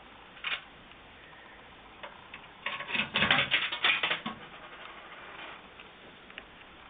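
Vintage 1970s animatronic chicken vending machine running through a prize cycle: a single click about half a second in, then a burst of rapid mechanical clicking and rattling about three to four seconds in, with lighter ticks after it.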